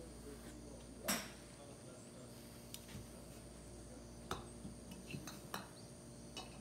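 Golf balls clicking against one another and against the driver's head as a ball is raked out of the range-ball tray onto the mat, a run of light clicks in the second half. One sharper knock about a second in. Steady insect chirring underneath.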